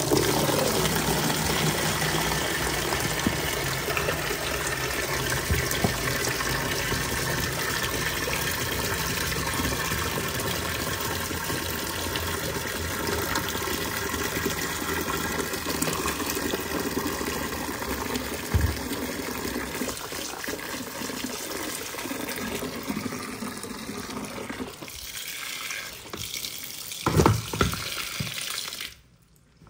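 Water running steadily from a tap, shut off shortly before the end. A brief knock comes a little past halfway, and a pair of louder knocks sounds shortly before the water stops.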